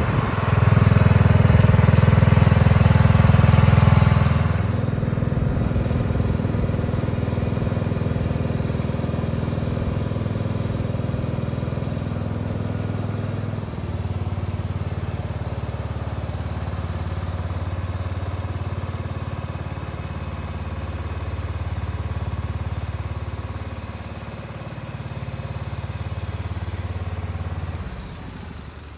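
Cub Cadet riding lawn tractor's engine running as the tractor is driven around. It is loudest for the first four seconds, then quieter and steady with slow swells, and fades out near the end.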